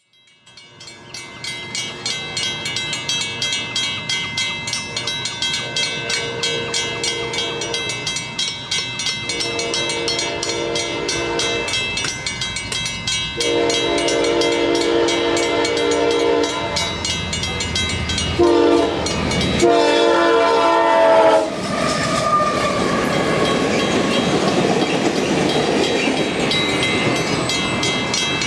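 Union Pacific special led by SD70ACe locomotive #1983, with an ES44AC and three cars, approaching and passing. The lead locomotive's air horn sounds a series of blasts: two long, a longer one, a short one, then a last long one. After that comes the loud rumble and clickety-clack of the train going by.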